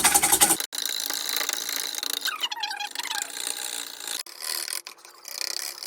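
Eggs being whisked in a bowl: a fast, continuous rattle of the whisk against the bowl as the eggs are beaten toward a froth.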